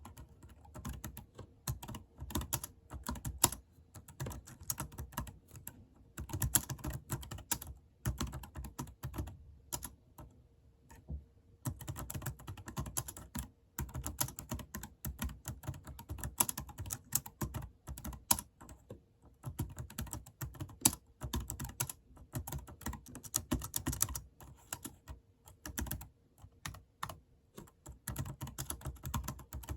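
Typing on a computer keyboard: fast runs of key clicks broken by short pauses every few seconds.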